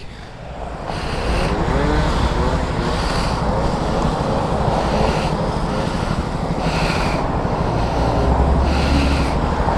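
Motorcycle engines idling while road traffic passes, a steady mechanical rumble with some wavering pitch. A deeper rumble swells about eight seconds in.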